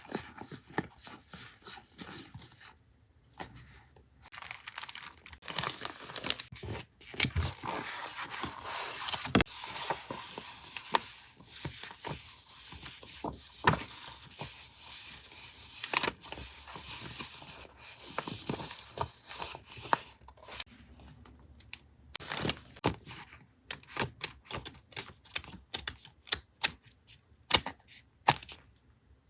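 Paper and packaging handled close to the microphone: rustling, crinkling and tearing, then a quick run of small sharp taps and clicks in the last several seconds.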